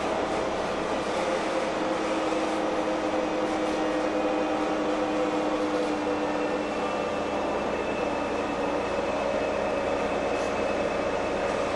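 Inside an LPG-fuelled Heuliez GX317 city bus under way: steady engine, drivetrain and road noise with a running whine, whose lower tone fades about halfway through as a higher one comes in.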